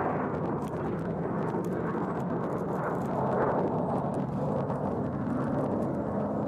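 Jet engines of a small twin-engine business jet climbing out after takeoff: a steady rushing engine noise that swells slightly midway.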